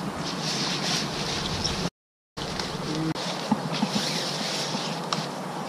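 Leaves, branches and kite fabric rustling and crackling as a kite is tugged free of an overhanging tree, over a steady high hiss. The sound cuts out completely for a moment about two seconds in.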